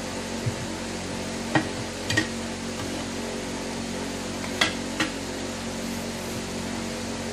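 Scattered sharp metal clinks and knocks, about half a dozen spread irregularly, from tools working on a ride-on mower's wheel rim and tyre during a tyre change, over a steady hum.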